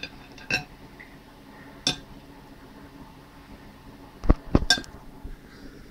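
Knife and fork clinking against a plate while a piece of steak is cut: a few separate sharp clinks, then a louder cluster of knocks about four seconds in.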